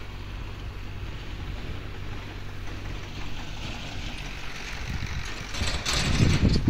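A steady low engine-like hum, with a louder rushing noise near the end.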